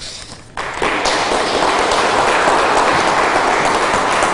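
Audience applause, starting about half a second in and continuing steadily.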